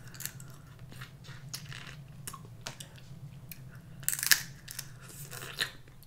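Dungeness crab shell cracking and crunching as it is picked apart by hand and bitten, with chewing. The sharpest crunching comes about four seconds in, with scattered small cracks and clicks around it.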